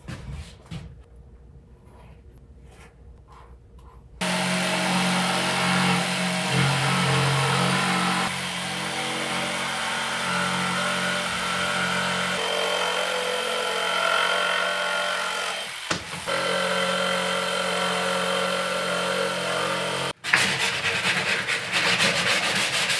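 Faint pencil scratching on plywood, then about four seconds in a handheld electric power saw starts cutting plywood, its motor running steadily with a brief dip later on. It stops near the end, and the cut plywood edge is sanded by hand with quick rubbing strokes.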